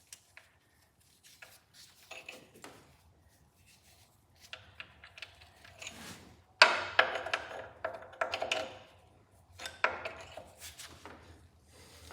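Irregular metal clinks, knocks and scraping from hand tools and bolts being handled on a Cub Cadet tractor frame during a transmission install. The loudest clatter comes about six and a half seconds in, with more knocks around eight and ten seconds.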